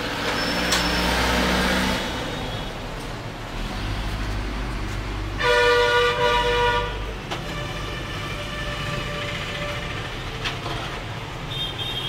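Background traffic noise with a steady low hum, and a vehicle horn sounding once for about two seconds around the middle, the loudest sound here.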